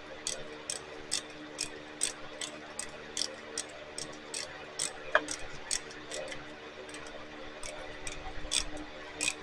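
Primer bulb on a Stihl FS76 trimmer's carburetor being pressed over and over, clicking about twice a second as it draws fuel from the tank up into the carburetor, over a faint steady hum.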